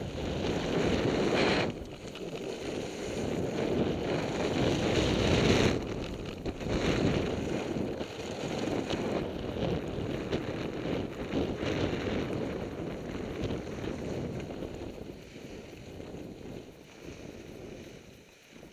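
Skis sliding and scraping over snow during a downhill run, with wind rushing over the microphone; the noise swells and eases in surges and fades toward the end.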